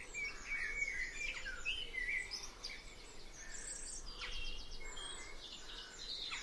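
Several songbirds singing at once, a busy mix of overlapping chirps, whistles and quick trills.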